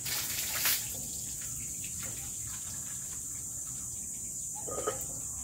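Water thrown from a plastic scoop splashing onto a dog and its wire cage, one splash in the first second, over a steady high drone of insects.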